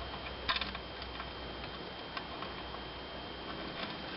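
A few light clicks and taps from hand tools and screws as the carburetor cover is fastened back onto a snowblower, over a faint steady hum. A small cluster of clicks comes about half a second in, then single ticks now and then.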